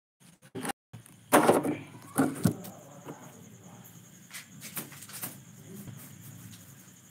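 Rustling and knocking from a phone being handled close to its microphone: two loud rough scrapes a second or so in, then a few lighter clicks.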